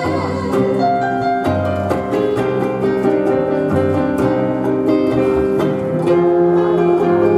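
Live band playing an instrumental passage of an enka song on electric keyboard, electric bass and hollow-body electric guitar, with no singing, over a steady beat.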